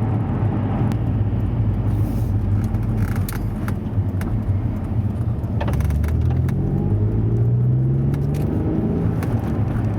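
Alfa Romeo Brera's 3.2 V6 engine running under way, heard from inside the car with road rumble; about six seconds in the engine note climbs steadily as the car accelerates. The engine runs smoothly, with no misfire, on its newly replaced ignition coil and spark plug.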